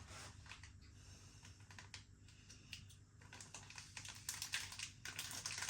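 Salt and chilli seasoning being shaken from its packet onto frozen chips and chicken pieces: faint, irregular ticking and patter of falling granules and packet handling, busier near the end.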